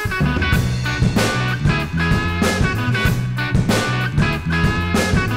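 Background music with a steady drum beat; a heavy bass line comes in just after the start.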